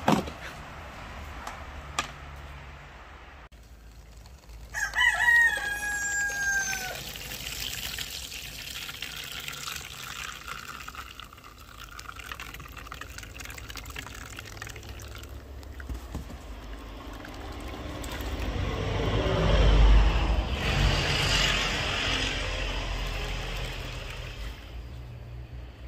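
A rooster crows once, about five seconds in. Coconut milk trickles and splashes through a mesh strainer into a plastic tub as the grated coconut pulp is squeezed by hand, louder around twenty seconds in.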